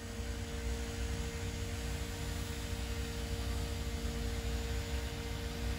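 Freightliner semi-truck's diesel engine running, heard from inside the cab: a steady low rumble with a constant hum over it.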